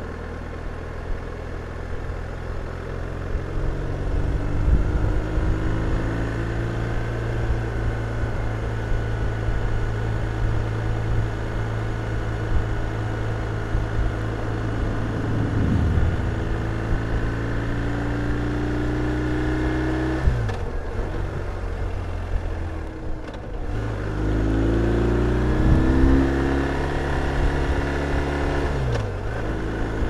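A 2022 BMW R1250 RT's boxer-twin engine pulling under way, its note rising as the bike gathers speed. The pitch drops sharply twice, about twenty seconds in and near the end, as it shifts up a gear.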